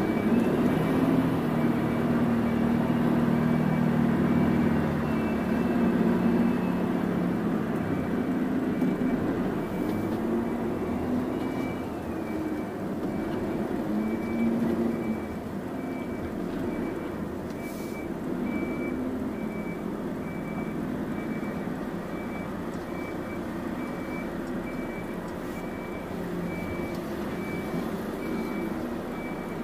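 Volvo FH12 500 truck's six-cylinder diesel engine heard from the cab, its pitch rising and falling over the first several seconds, then running quieter. A faint high beep repeats steadily at a fast even rate throughout.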